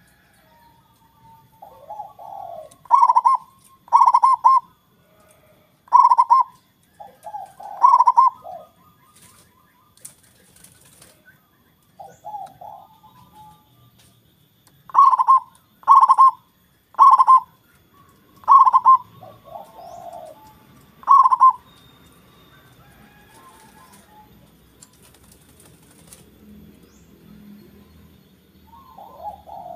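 Local zebra dove (perkutut) singing: a series of loud, clipped coos about a second apart, with quieter low warbling notes between them.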